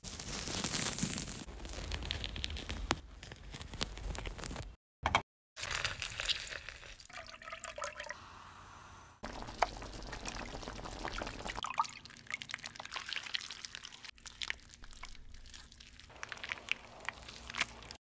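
A run of close-up food-preparation sounds in quick cuts: mandarin peel being torn away from the fruit, then an orange mixture with butter pouring and being stirred in a pan, and at the end a soft paste being pressed flat with a spatula. There is a brief silent gap about five seconds in.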